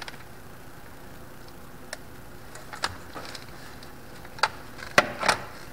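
Irregular sharp clicks and taps of plastic and metal as a handheld multimeter, its test leads and wiring connectors are handled, about six in all, the loudest three near the end.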